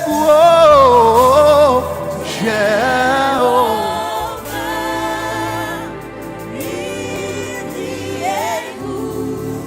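Live gospel worship music: a voice sings a long, bending, wavering run over sustained instrumental accompaniment, loudest in the first two seconds. About four seconds in it gives way to softer held chords and notes.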